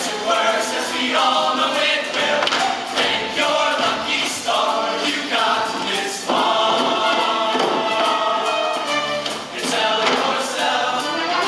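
Show choir singing in harmony over instrumental accompaniment, with a long held chord about six seconds in.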